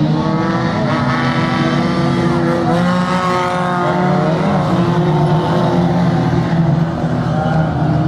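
Engines of a pack of banger racing cars running hard as they race past, several at once at different pitches, each rising and falling as they accelerate and lift off.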